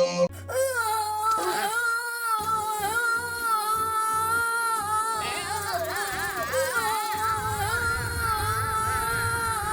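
A person's toothache moan, altered by an audio effect into one long, wavering, sung-sounding tone with a low buzz beneath.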